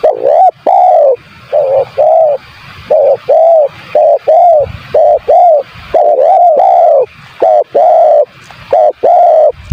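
Spotted dove (tekukur) cooing: a loud, rapid series of short, arched coo notes, mostly in pairs, with brief gaps between them.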